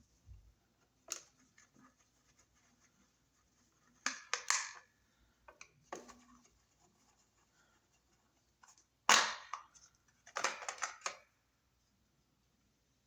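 Short scraping and scratching noises of hand work at a wall outlet, as a screwdriver and the cover plate or receptacle are handled, in several separate bursts with the loudest about nine seconds in.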